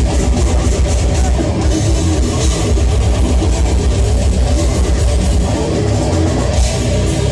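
Live heavy metal band playing loud, with distorted electric guitars and a drum kit keeping up a fast, driving beat.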